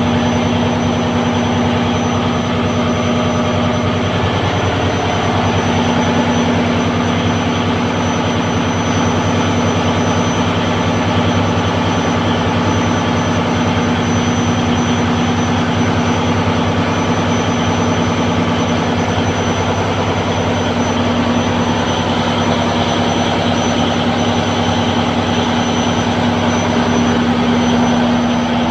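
Fishing boat's inboard engine running steadily and loudly in the engine room, with a constant deep hum.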